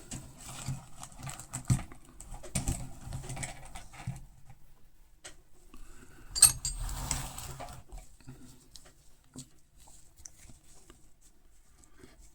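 Metal hand tools handled on a bench: irregular clicking and clattering, loudest about six and a half seconds in, then only a few light ticks.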